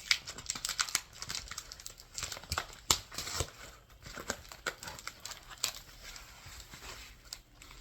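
A mailed package being opened by hand: packaging crinkling and tearing in a run of irregular sharp crackles, busiest in the first half, with one loud snap about three seconds in.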